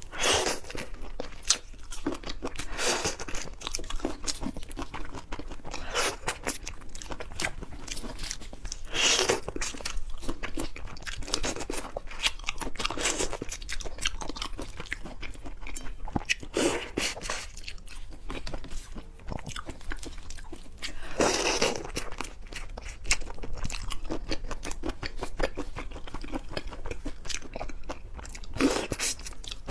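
Chewing and crunching while eating butterflied raw drunken shrimp, a run of separate bites and crunches with a few louder ones.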